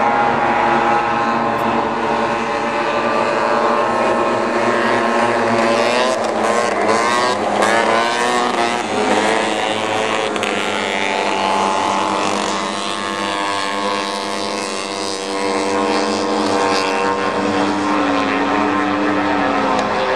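Vintage racing snowmobiles' two-stroke engines running hard together while racing, their pitch rising and falling.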